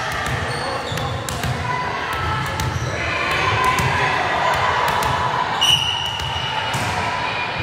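Volleyballs being struck and bouncing on a gym floor: a string of sharp, irregular smacks, with voices echoing in the large hall.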